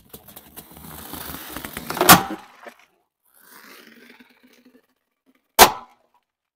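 Two latex balloons bursting under a slowly rolling car tyre, each with a sharp loud bang, about three and a half seconds apart. Before the first bang there is a rising crackling and rubbing as the tyre presses onto the balloon on the asphalt. Between the bangs there is quieter rubbing as the tyre squeezes the second balloon.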